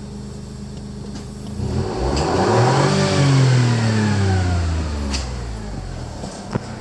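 BMW MINI One (F55) B38A12A 1.2-litre three-cylinder turbo petrol engine idling, then revved once: the pitch rises about two seconds in, peaks, and falls back to idle about two seconds later.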